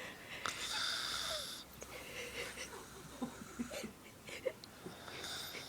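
A sleeping man snoring: a long hissing breath starting about half a second in, then faint clicks and mouth noises, and a shorter breath near the end.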